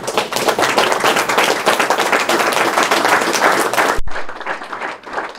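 Audience clapping, loud and dense at first, then breaking off abruptly about four seconds in to lighter clapping.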